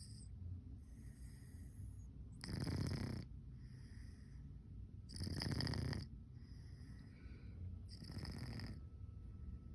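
Domestic cat snoring in deep sleep: three louder, breathy snores come about every two and a half to three seconds, with fainter breaths between them.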